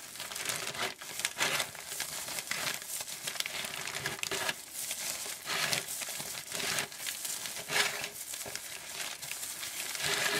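Clear plastic bag crinkling and rustling unevenly as a hand grips and spins the old oil filter off through the bag.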